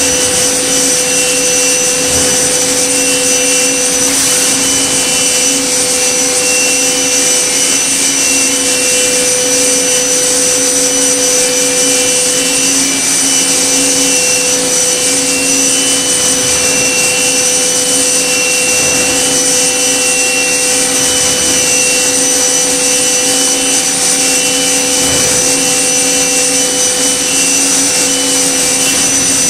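Okuma MB-5000HII horizontal machining center spindle running with a small cutter milling a workpiece: a steady whine of several held tones over a hiss, with a higher tone that keeps breaking in and out.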